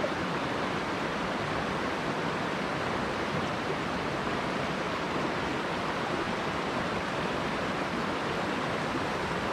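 Headwater mountain stream rushing steadily, an even wash of running water.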